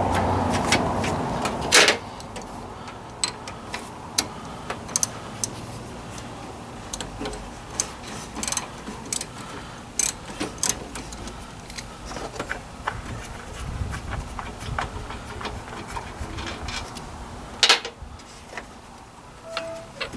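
Scattered metallic clicks and taps of a wrench and hand tools loosening and pulling out a car's AC high-pressure line fitting, at an uneven pace. A steady rushing noise stops with a sharp knock about two seconds in, and another loud knock comes near the end.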